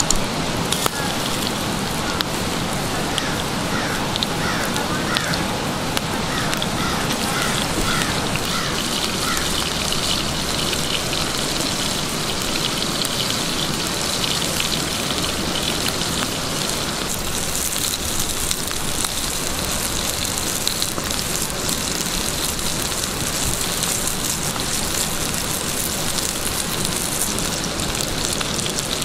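Seasoned redfish fillets frying in oil in a cast iron skillet: a steady sizzle full of fine crackles, with the wood fire beneath the pan crackling along.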